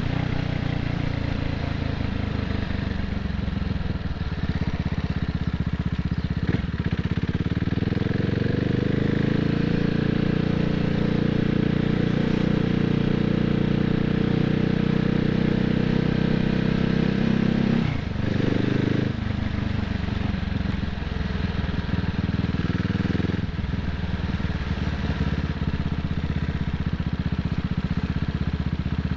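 CCM Spitfire's single-cylinder motorcycle engine running under way. The engine note rises as it accelerates a few seconds in and holds steady, then drops sharply about two-thirds through and carries on at a lower pitch.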